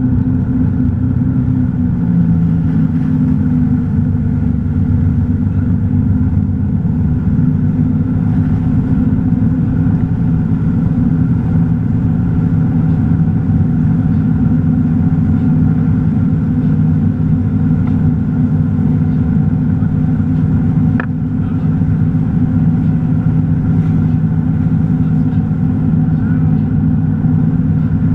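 Tige 22ve wake boat's inboard engine running steadily at wakesurf speed, about 12 mph, with water rushing and churning in the wake behind the stern. A brief click about three quarters of the way through.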